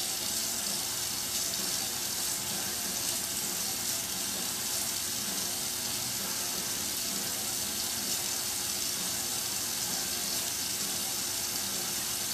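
Hot water running steadily through a grain bag and draining into a stockpot of stout wort, an even rush of water with no breaks.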